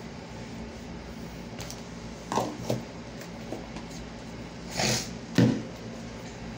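A few brief knocks and rustles over a steady low hum: two soft ones a little after two seconds in, then two louder ones about a second before the end.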